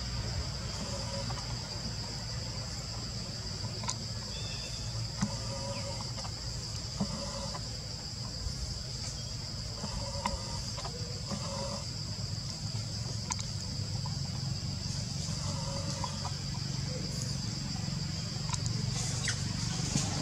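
Forest insects, cicadas or crickets, keeping up a steady high-pitched drone, over a low rumble, with a few faint short sounds scattered through.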